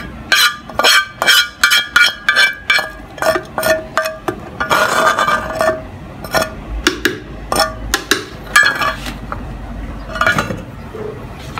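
Metal spoon scraping and knocking against a pan while scooping food into a blender jar: a quick run of ringing clinks, a longer scrape about five seconds in, then sparser knocks.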